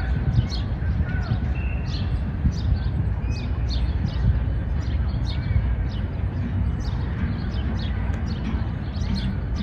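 Small birds chirping in quick, repeated short notes, with a few brief whistled glides, over a steady low rumble of outdoor ambient noise.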